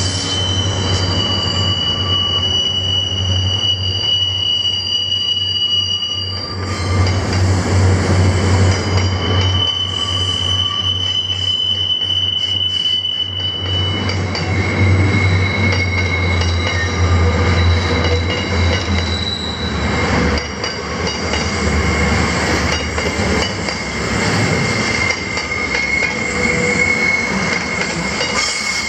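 Loaded grain hopper wagons rolling past at close range, with steady high-pitched wheel-flange squeals that come and go. A low drone from the trailing diesel locomotives stops about two-thirds of the way in.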